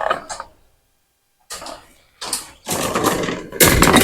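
A welded-wire hog panel scraping and rattling in irregular bursts against metal T-posts as it is pushed up into an arch. The sound cuts out completely for under a second about half a second in.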